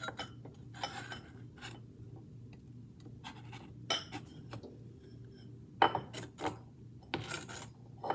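Kitchen utensils and cookware being handled: scattered clinks, knocks and scrapes, with a few louder clatters about six and seven seconds in.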